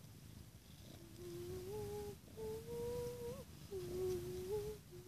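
A girl humming a short tune quietly, a handful of held notes that step up and down, starting about a second in.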